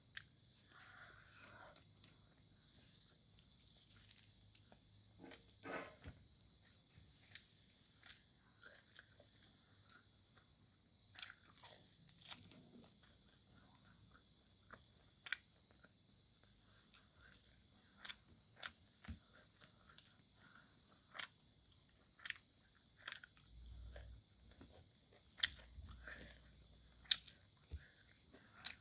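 Close-up eating sounds from a fried-pork meal: scattered sharp clicks and smacks of chewing. Insects chirp in repeated pulses in the background.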